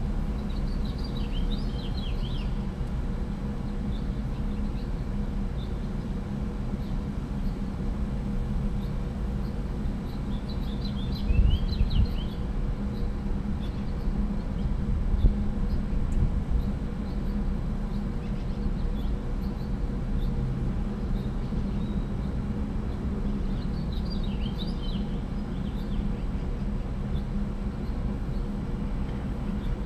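Three short bouts of faint bird chirping over a steady low rumble and hum. Two brief low bumps near the middle are the loudest moments.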